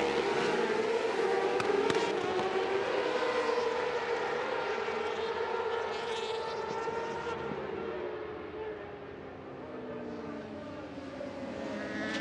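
A pack of racing sportbikes accelerating hard off the start, many engines revving high at once, their pitches gliding up and dropping as the riders shift gears. The sound fades somewhat past the middle and swells again near the end.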